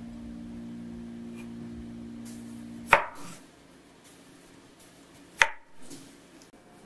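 Chef's knife cutting through small red potatoes onto an end-grain wooden cutting board: two sharp chops about two and a half seconds apart, the first about three seconds in.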